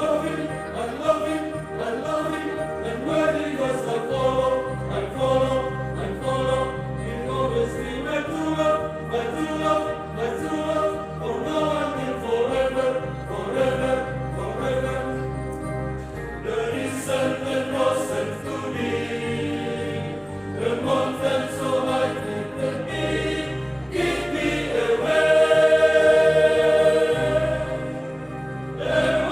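Choir singing a Catholic church hymn in parts over a steady held bass accompaniment, swelling loudest about three quarters of the way through.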